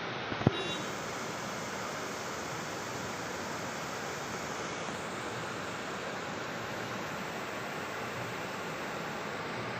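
River water rushing steadily, with one sharp click about half a second in.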